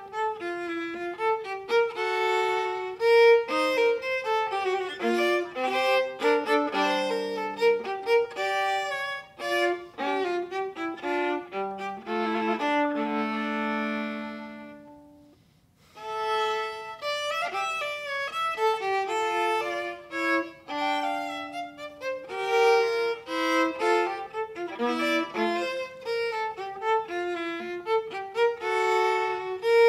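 A viola playing a classical piece in quick running notes. About halfway through, a long held low note dies away, and the playing starts again a moment later.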